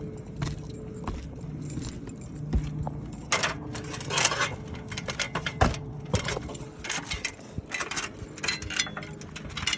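Irregular metallic clinking and rattling with scuffs and knocks as a roofer climbs a ladder onto the upper roof. The clatter is busiest in the middle and latter part.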